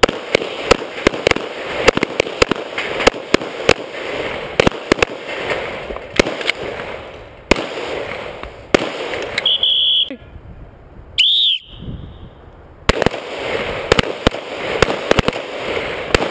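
Rapid pistol fire from several shooters at once, shots overlapping several times a second as bowling pins are knocked off steel tables, the shooter nearest including a Glock pistol. The firing stops about seven and a half seconds in. Near ten seconds there is a short electronic beep, and a second later a brief bending tone. The rapid firing starts again about thirteen seconds in.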